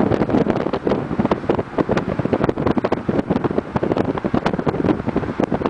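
Wind buffeting the microphone from a moving car, a continuous irregular rumble and crackle over the car's road noise.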